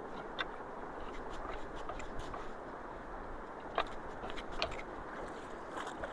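Creek water rushing steadily into a culvert, with scattered clicks and scrapes from sticks and debris of a beaver blockage being pulled out by hand.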